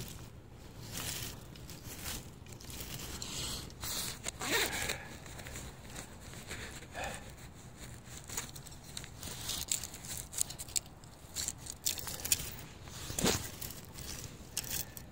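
Dry pine needles and twigs on the forest floor rustling and crackling as a hand pushes through them, with irregular scrapes and small snaps, a couple of them louder: one a few seconds in and one near the end.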